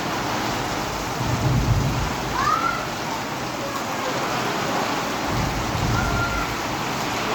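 Heavy rain pouring down steadily, with two low rumbles, one about a second in and one near the end, of thunder or wind gusts.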